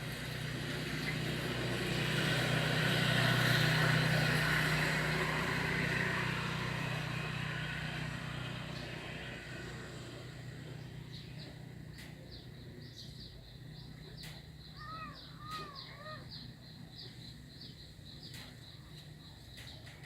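A vehicle passing by, its noise swelling and then fading over the first half. After that, rapid high-pitched chirping repeats several times a second, and a short warbling bird call comes about three-quarters of the way through.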